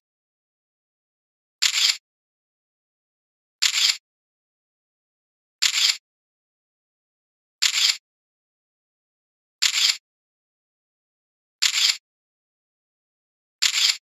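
Short bursts of hiss, each under half a second, repeating evenly about every two seconds with silence between.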